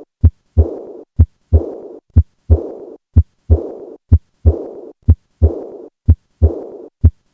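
Heart sounds of acute aortic regurgitation, heard at the fourth left intercostal space. The heart beats steadily about once a second, eight beats in all. Each beat is a sharp first sound and then a second sound, followed by a short murmur that fades away in early diastole.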